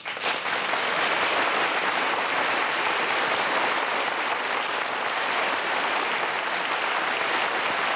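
Audience applause, starting abruptly and holding steady.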